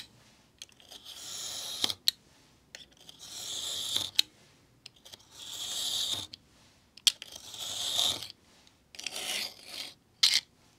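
A snap-off craft knife drawn along a ruler, slicing through a paper notebook's cover stock and pages in about five light, smooth passes, each a scratchy stroke of about a second. Short clicks come between the passes.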